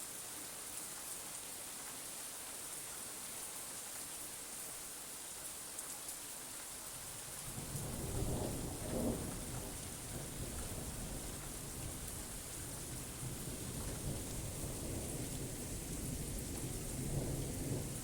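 Steady rain falling, joined about seven seconds in by a long roll of thunder: a deep rumble that swells loudest shortly after it starts and keeps rolling to the end.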